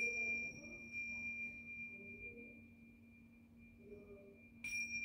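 A small hand-held metal chime is struck and gives one clear, high ringing tone that fades slowly. It is struck again near the end. A faint low steady hum runs beneath it.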